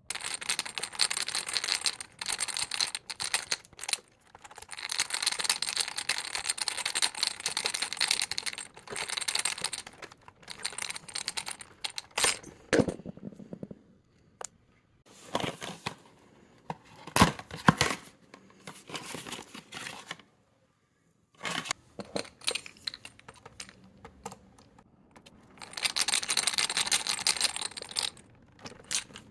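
Plastic packaging crinkling and tearing in long rustling stretches, with scattered clicks and knocks of small plastic parts being handled, as a replacement Roomba side brush is unpacked and fitted.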